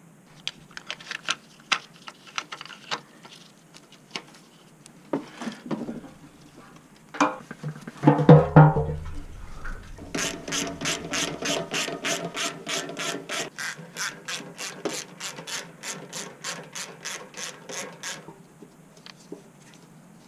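Socket ratchet wrench clicking in an even run, about four clicks a second for some eight seconds, as a bolt is turned. Before it come scattered light clicks from handled parts and one loud heavy clunk about eight seconds in.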